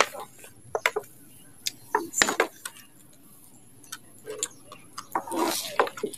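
Handling noise: scattered light clicks and taps at irregular intervals, with a short rustle about five seconds in.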